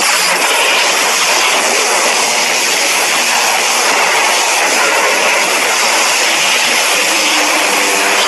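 Edited monster sound effect: a loud, steady rushing hiss with a faint low drone under it, starting abruptly after a silence.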